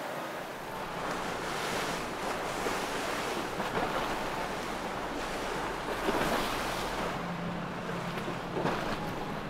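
Wind buffeting the microphone over rushing boat-wake water, with a boat engine's low steady hum coming in about seven seconds in.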